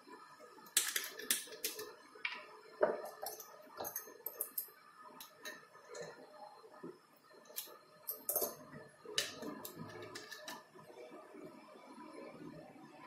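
Scattered small clicks and taps from glass and plastic labware being handled: a vial, cap and dropper bottle picked up, set down and opened on a stone countertop.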